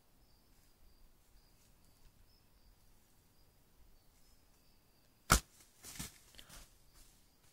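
A bow shot at a deer: one sharp, loud snap of the released bowstring about five seconds in, then within a second a burst of rustling and crunching in dry leaf litter as the buck ducks the arrow and the shot misses. Faint insects trill steadily beneath.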